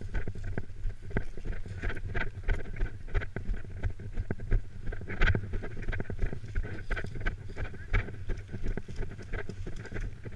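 Footsteps crunching through dry grass and fallen leaves, irregular crackles throughout, over a steady rumble of wind on the microphone.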